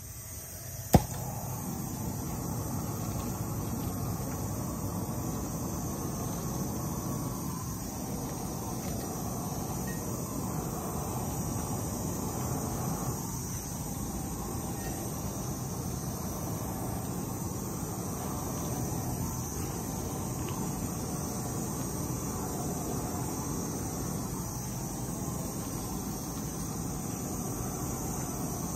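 Propane wand torch, its nozzle fitted with a can, burning with a steady hiss while it burns planting holes through woven landscape fabric. A sharp click about a second in, as the steady burner noise begins.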